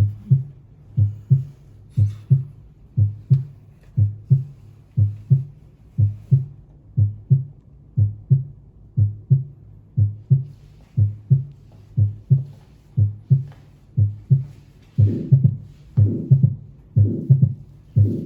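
Recorded heart sounds from an auscultation recording: a steady lub-dub at about one beat a second. From about fifteen seconds in, the beats grow louder and fuller.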